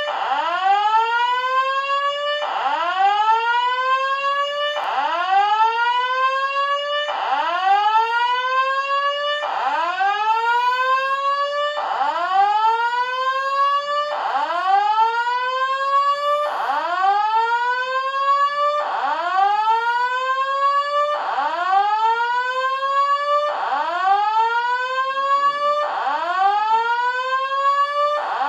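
Electronic alarm sounding a repeating rising whoop: each tone sweeps upward for about two and a half seconds, then drops back and starts again.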